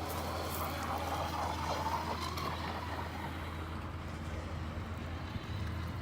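Joysway US1 V3 brushless RC catamaran boat running on the water at a distance. Its motor and hull noise fades after about three seconds.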